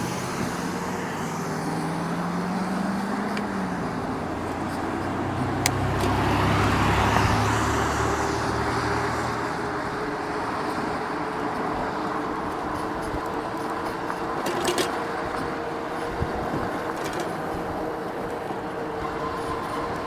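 Street traffic: motor vehicles running past over steady road noise, with one vehicle passing loudest about seven seconds in.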